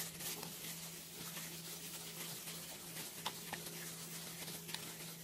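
Faint wet squishing and scattered small clicks of a plastic-gloved hand kneading chicken pieces in a thick marinade in a bowl, over a steady low hum.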